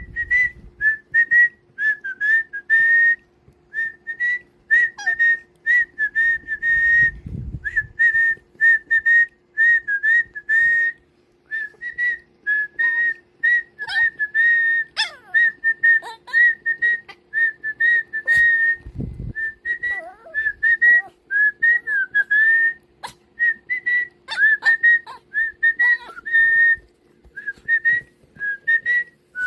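A person whistling a string of short notes that stay close to one high pitch and dip and bend slightly, with brief pauses between phrases.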